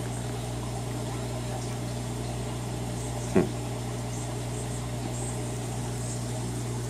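Aquarium pump running with a steady low hum and an even hiss. A single short, sharp sound stands out about three and a half seconds in.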